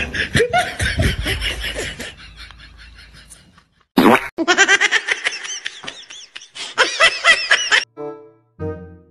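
Edited-in comedy sound: a sudden burst of rapid, repeated laughter about four seconds in, lasting nearly four seconds, after a fading jumble of sound. A few seconds of music with brass-like notes begins near the end.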